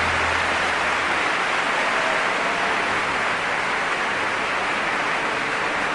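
Steady, even hiss-like rushing noise with no pitch or rhythm; a low hum fades out right at the start.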